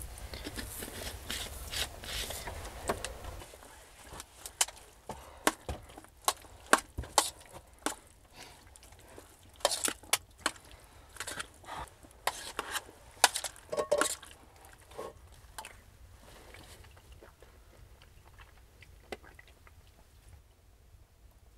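Irregular sharp knocks and clatters of things being handled, coming thick and fast from about four seconds in and thinning out after about sixteen seconds, after a few seconds of noisy rustling.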